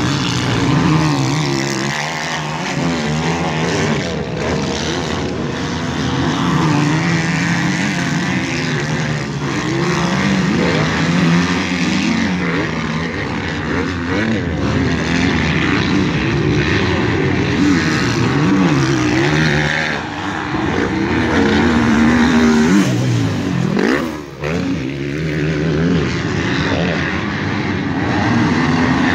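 Several motocross bikes racing on a dirt track, their engines overlapping and rising and falling in pitch as the riders work the throttle through the course.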